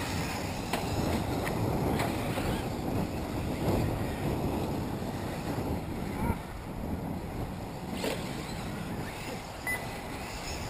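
Wind rumbling on the microphone over the running of electric 1/8-scale RC off-road buggies on the track, with a few brief clicks.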